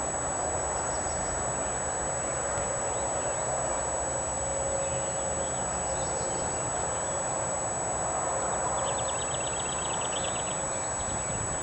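A steady outdoor background hiss with small songbirds chirping, including a fast trill of rapid ticks about nine seconds in.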